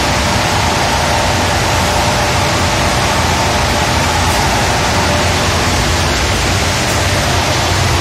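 Twin-furnace package boiler firing with its automatic fuel feed running: a loud, steady rushing noise with a faint steady whine and a low hum underneath.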